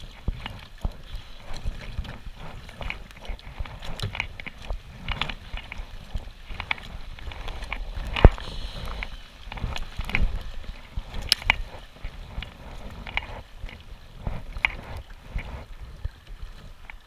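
Kayak paddle strokes, the blades dipping and splashing in the water about every second and a half, with water sloshing. There is one sharp knock about eight seconds in.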